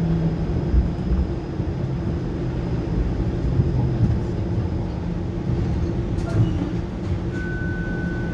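Cabin sound of a TTC Flexity Outlook low-floor streetcar rolling slowly along street track: a steady rumble of wheels on rail with a low electric motor hum. Near the end a single high electronic tone comes on and holds.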